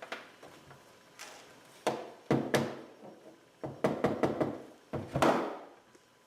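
Irregular knocks and thunks of PVC pipe pieces being handled and pushed together as a freshly cemented fitting is seated, coming in a few clusters, the last one longer and loudest.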